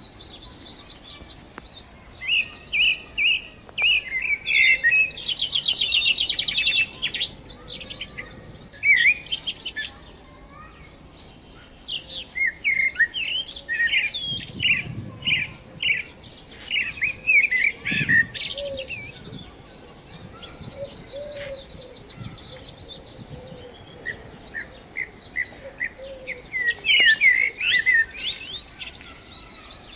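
Small birds chirping and twittering: a steady run of short high notes and quick trills, with no pause.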